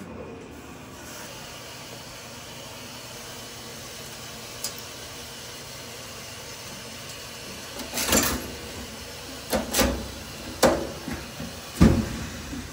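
A series of sharp knocks and clunks, like doors or lids being shut, about five in the last few seconds over a steady low hiss.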